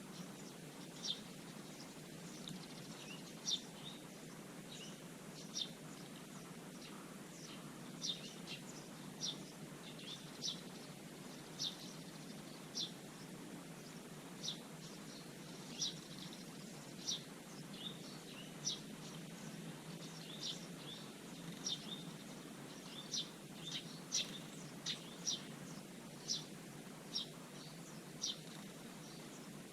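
Small garden birds chirping: short, high single chirps about once a second, repeated throughout, over a steady low background hum.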